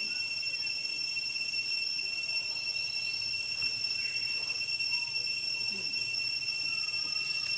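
A steady, high-pitched insect drone, cicadas calling without a break. Faint short chirps are scattered over it.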